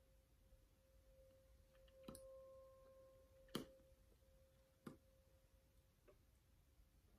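Near silence with a faint steady hum and four small clicks while a liquid lip tint is handled and applied with its wand; the loudest click comes about three and a half seconds in.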